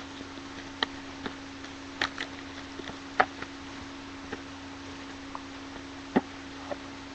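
A sealed trading-card box being opened and handled, giving scattered small clicks and taps at uneven intervals over a steady low hum.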